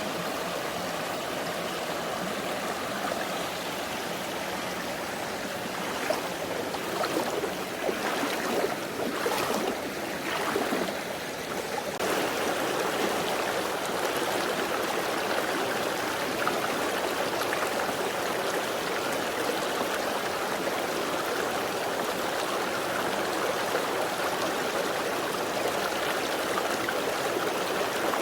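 A mountain valley stream flowing steadily over rocks. Between about six and twelve seconds in, a few irregular knocks and rustles sound over the water.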